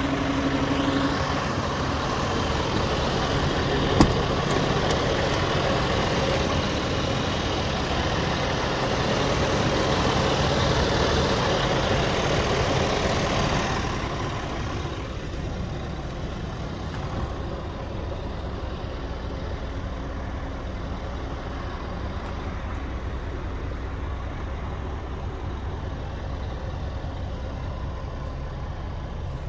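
Scania G480's six-cylinder diesel engine idling steadily. It is louder at first, then quieter and muffled about halfway through, as heard from inside the cab. A single sharp click comes about four seconds in.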